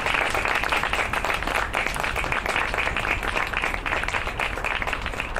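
A group of people applauding after a song, the dense clapping slowly fading.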